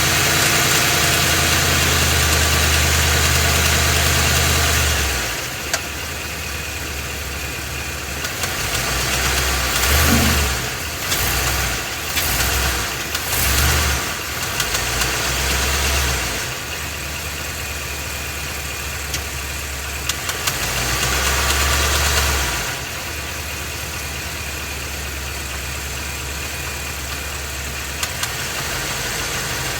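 Ford 7.3-litre Godzilla gasoline V8 running in gear against the brake, heard from underneath the truck, with a knocking noise; it rises and falls in level several times. The knock is the bad engine noise that an oil-pump replacement did not cure, and the engine is to be replaced.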